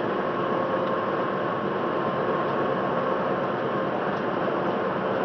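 Heavy truck's diesel engine and road noise heard from inside the cab: a steady rumble and hiss, with a faint steady whine, and no horn.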